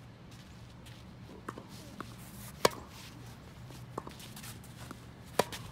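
Tennis ball struck by rackets in a rally: two loud, sharp hits close by, about two and a half seconds apart, with fainter hits and bounces from the far end of the court in between.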